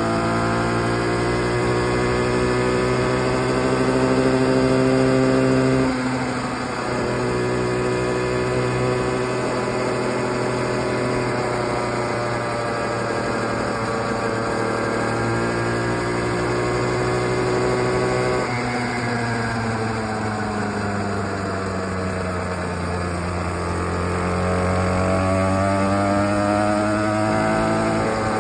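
Tiny 49cc two-stroke minibike engine running under way, its note climbing, then dropping abruptly about six seconds in, holding, stepping up again, sagging and climbing back near the end as the throttle is opened and eased.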